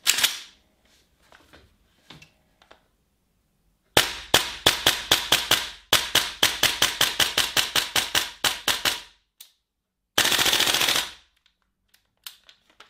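Tokyo Marui M4 MWS gas blowback airsoft rifle: a sharp clack as the magazine seats. After a pause, two rapid strings of shots follow, each shot a sharp clack of the bolt cycling. A steady hiss about a second long comes near the end.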